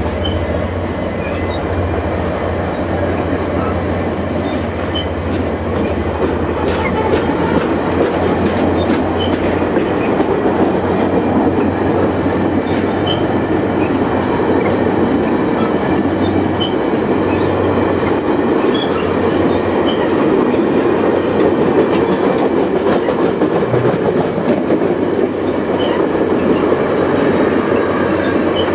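Stainless-steel passenger cars of VIA Rail train 2 rolling past at speed: a steady loud rumble of steel wheels on the rails, dotted with brief high-pitched chirps from the wheels.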